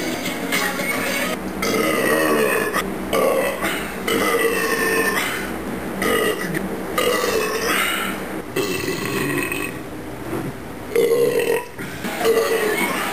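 A man burping loudly after drinking: a long series of drawn-out burps, one after another with only short breaks between them.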